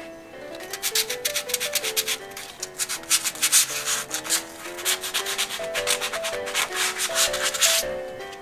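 Hand sanding with sandpaper on a water heater's steel tank, rapid back-and-forth rasping strokes working off stuck polyurethane foam residue. Soft background music plays underneath.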